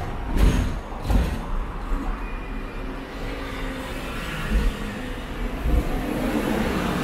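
Hong Kong double-decker tram running along its street tracks, with three heavy knocks in the first second and a half, then a steady rumble of the car and the surrounding traffic that grows a little louder near the end.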